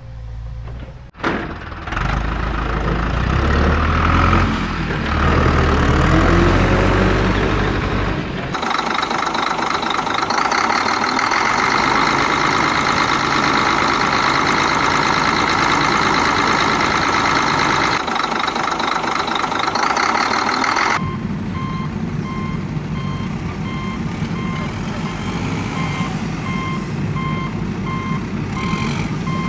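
Construction vehicle motor running in several cut-together stretches: first a low, shifting engine sound, then a steady whine. From about two-thirds of the way through, a reversing alarm beeps at a regular pace over the motor.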